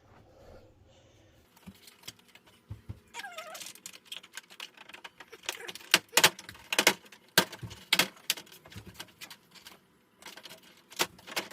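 Irregular clicks and clacks of TV parts being handled during disassembly: plastic case pieces and screws being moved and set down. The sharpest knocks come between about five and eight seconds in, and a short falling squeak comes about three seconds in.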